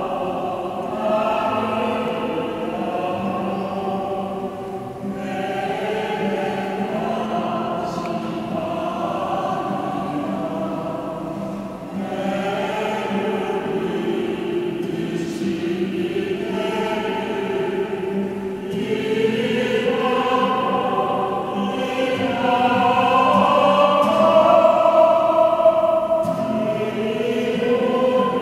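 A choir singing in long held phrases with short breaks between lines, growing louder near the end.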